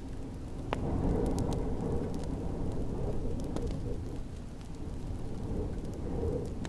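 Wood fire crackling with scattered sharp pops over a low, steady rumble of snowstorm wind that swells and eases.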